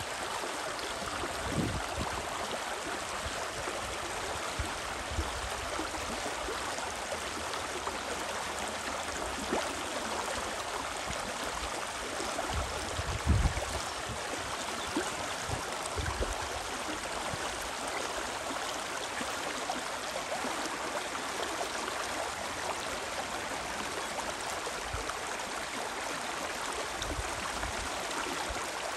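Spree river water rushing in a steady, even wash. A few brief low thumps break in, the loudest about 13 seconds in.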